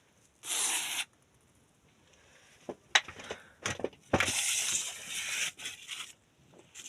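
A brush sweeping cobwebs off a surface: a short scratchy swish, then a few sharp clicks and taps, then a longer swish of about two seconds.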